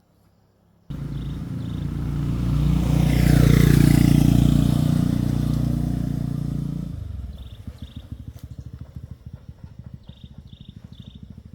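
A motor vehicle engine starts up suddenly about a second in, running loud and swelling to a peak, then drops back after about six seconds to a low, pulsing idle. Faint high chirps of insects or birds sound over the idle.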